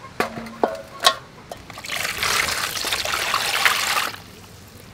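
Water splashing in a metal basin as two whole plucked ducks are put into it and washed, for about two seconds in the middle, after a few light knocks in the first second.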